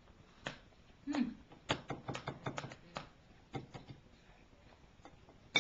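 A toddler's spoon clicking and scraping against his bowl as he eats. There is a quick run of taps about two seconds in and a sharper click near the end.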